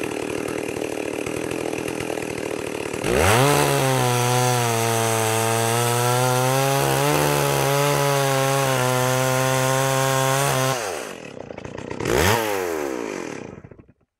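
A 5.7-horsepower two-stroke chainsaw, mounted in a guide-rail mill, rips the last cut along a log. It runs at lower speed for the first three seconds, then at full throttle under load until about eleven seconds in. It drops back, gives one short rev, and dies away near the end.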